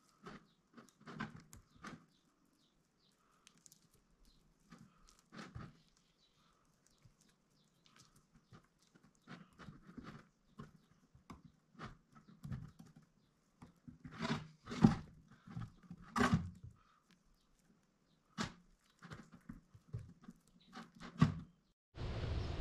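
Sparse, irregular soft squelches and taps of wet, paste-covered fingers pressing and smoothing white paste onto a plastic jug, the loudest a little past the middle. Near the end a steady hiss starts suddenly.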